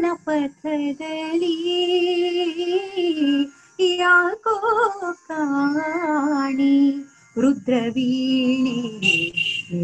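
A woman singing a Kannada song in a light-classical style, with long held notes and wavering, ornamented turns, and short pauses between phrases.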